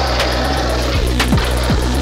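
Music soundtrack with a steady beat: a sharp snap about once a second over repeated falling bass glides and a low, steady bass.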